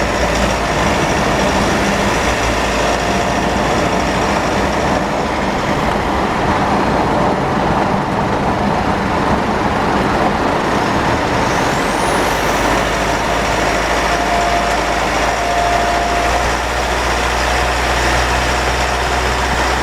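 Mitsubishi 4N15 diesel vehicle under way, with heavy rumble and road noise and a thin, steady high-pitched whine ('EEeee') that fades in the middle and comes back about two-thirds of the way through. It is the drivetrain whine that dealer repairs failed to cure; the owner later found an overfilled rear differential, burnt front differential oil and low ATF.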